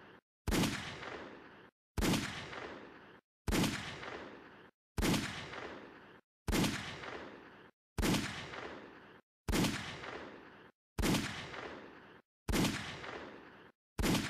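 A sharp hit with a dying tail, repeated about every second and a half, ten times in a row, each one cut off abruptly before the next.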